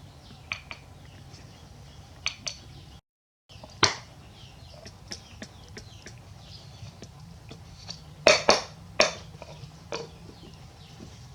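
Scattered sharp clicks and taps of small objects being handled, some in quick pairs, with a louder cluster about eight to nine seconds in, and faint bird chirps behind. The sound cuts out for a moment about three seconds in.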